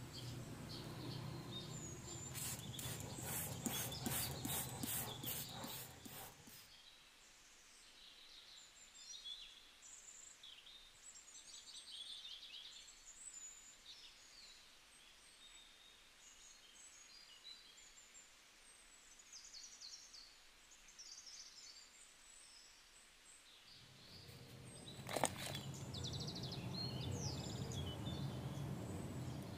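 Small birds chirping and twittering over a low, steady background hum. The hum drops away for most of the middle, leaving only the bird calls, and comes back near the end with one sharp click.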